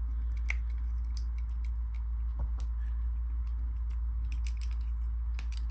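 Small irregular clicks and scraping as the deburring tool of a coax cable stripper is spun around the end of an LMR-400 cable, rounding off its cut edge. A steady low hum runs underneath.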